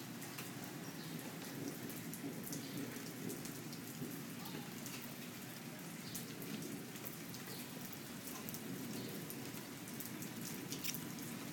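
Steady rain falling on pavement and grass, with scattered light ticks of drops hitting; the hail has stopped and only rain is left.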